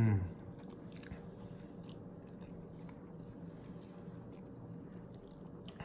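A person chewing ramen noodles with the mouth close to the microphone, soft wet mouth clicks scattered through. It opens with a short voiced hum that falls in pitch.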